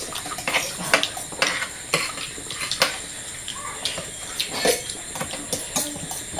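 Spoons clinking and scraping against plates in short, irregular taps while people eat and serve.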